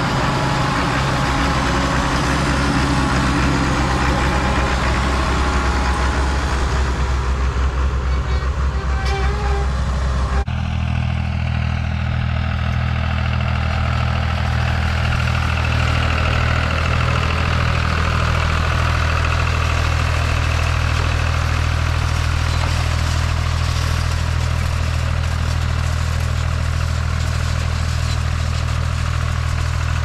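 Allis-Chalmers 200 tractor engine running steadily. About ten seconds in it cuts to a John Deere tractor engine running at a steady pace while pulling a wheel rake through hay.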